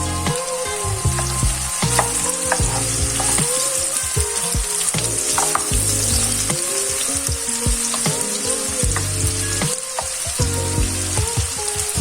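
Food sizzling as it fries in a hot pan, a steady crackling hiss, with scattered sharp clicks of a utensil stirring against the pan.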